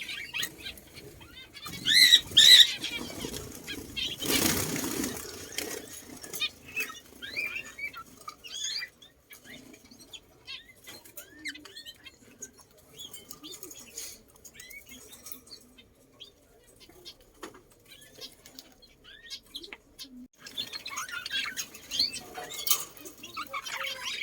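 Birds calling: a couple of loud squawking calls about two seconds in, then a burst of wing-flapping, then many faint short chirps, with louder calls returning near the end.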